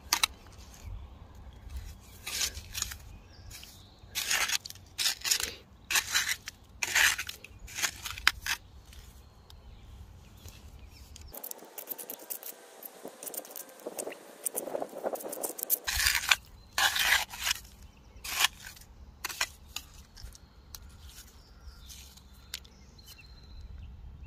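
Hand trowel scraping and digging through wet sand and mud to turn up clams, in irregular sharp strokes about a second apart.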